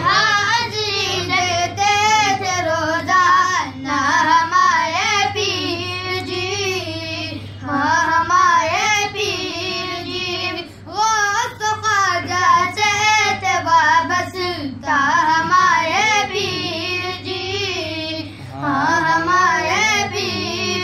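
A young voice singing a devotional Urdu manqabat without instruments, in long wavering phrases of about three to four seconds with brief pauses between them. A steady low hum runs underneath.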